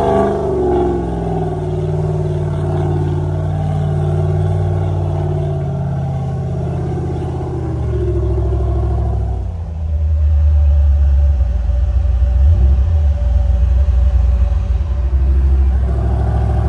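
Off-road Jeep engine running at low revs while crawling over slickrock, its note shifting as the throttle changes. About halfway through it gives way to a heavier, louder low rumble.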